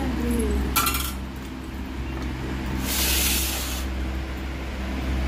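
A hand eating from a steel plate, with one light metallic clink about a second in. A short loud hiss follows about three seconds in, over a steady low hum.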